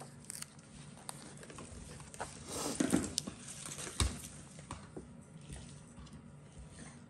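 Quiet handling of planner stickers and paper: small scattered ticks and taps, a short rustle about three seconds in, and a soft knock about a second later, as a sticker is peeled and pressed onto the planner page.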